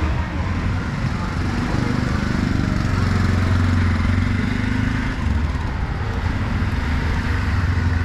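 Street traffic: vehicle engines running close by, a steady low hum that swells a little around the middle, over general road noise.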